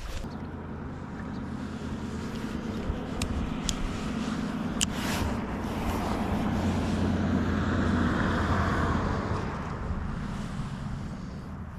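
A passing motor engine: a steady low hum that grows louder to a peak about eight seconds in, then fades. A few sharp clicks sound around three to five seconds in.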